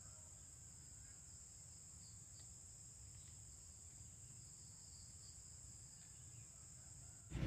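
Steady high-pitched chorus of insects, with a faint low rumble underneath; a louder noise cuts in suddenly near the end.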